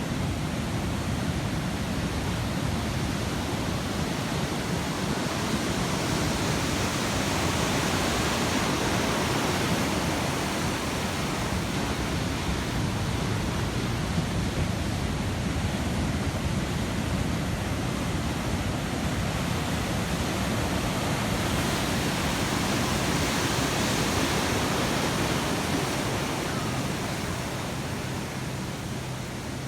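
Ocean surf breaking on a beach: a steady rushing wash of water that swells twice, about a quarter of the way in and again about three quarters in, then eases off near the end.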